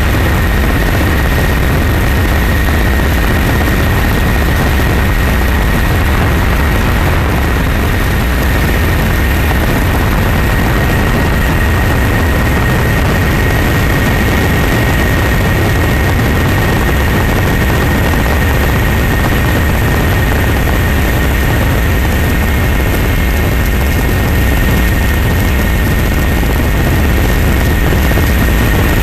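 Helicopter engine and rotor noise, a steady, heavy drone with a constant high whine above it.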